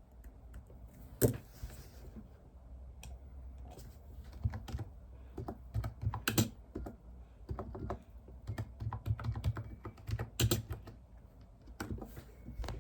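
Typing on a computer keyboard: irregular runs of key clicks, with a few louder single key strikes scattered through.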